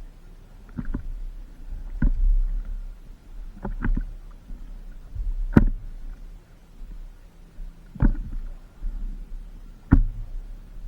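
Paddle strokes in water, one about every two seconds, over a steady low rumble.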